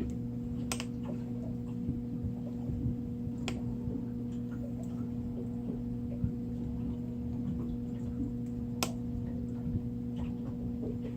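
Steady electrical hum with a few sharp metallic clicks, three standing out, about one second in, at three and a half seconds and near nine seconds, from needle-nose pliers working stiff single-strand leader wire as it is wrapped tight around a hook eye.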